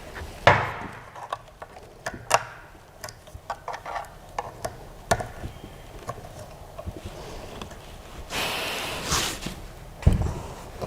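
Hands handling parts and packaging of a 3D printer being unboxed: scattered clicks and knocks, a rustle lasting about a second near the end, then a heavier thump.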